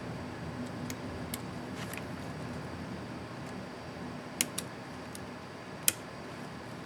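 Small sharp plastic clicks and snaps of a laptop keycap and its scissor retainer clips being handled and fitted on an ASUS ZenBook UX31E's keyboard. There are about seven of them, scattered and uneven, with the loudest about four and a half and six seconds in, over a steady low hiss.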